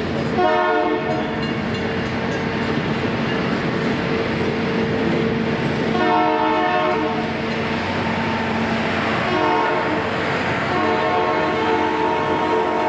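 Freight cars of a passing train rolling steadily through a level crossing, with a train horn sounding several times: a blast about half a second in, another about six seconds in, and more from about nine and a half seconds on.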